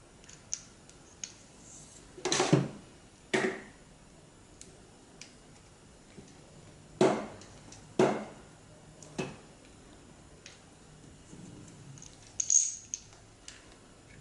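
Metal clicks and clinks of an Aqualung Titan scuba regulator first stage and its hose fittings being handled while the hoses are screwed back into its ports. There are a handful of sharper knocks, the loudest about two, three, seven and eight seconds in, and another near the end.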